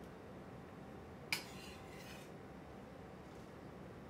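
A single sharp clink of kitchenware about a second in, ringing briefly, over quiet room tone.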